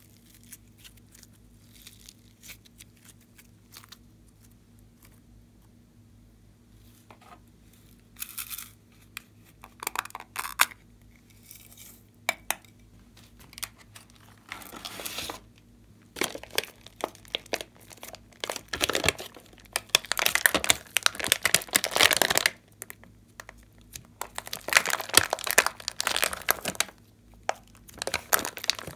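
Hands squishing and stretching glossy slime, with sticky crackling and popping. Only a few faint clicks for the first several seconds, then irregular crackles that grow dense over the last dozen seconds.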